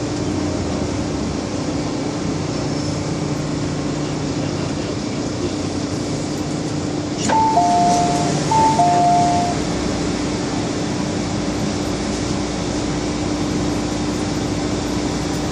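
MTR M-Train carriage running and slowing into a station, with a steady hum and rumble. About seven seconds in there is a click, then the train's two-tone electronic chime, high note then low note, sounds twice.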